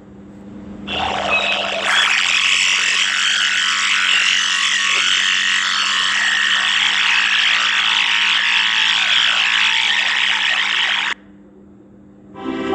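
A recording played back through a phone voice-changer app's duck effect, pitched far up into a shrill, garbled squawking. It starts about a second in and cuts off abruptly near the end, and just before the end the app's robotic voice-encoder effect starts with a steady, buzzy pitched tone.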